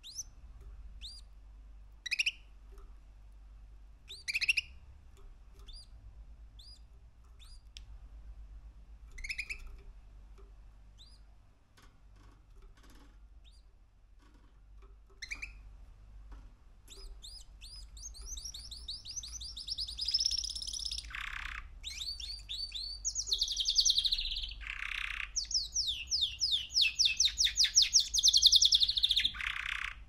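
Young male canary, about three months old, giving short, scattered chirps for the first half, then breaking into a fast, continuous trilling song of rapidly repeated notes that grows louder toward the end.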